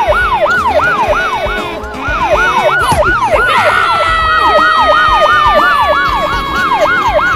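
Police siren in a fast yelp, its pitch sweeping up and down about three times a second. A little past halfway a second held tone joins it and slowly sinks in pitch.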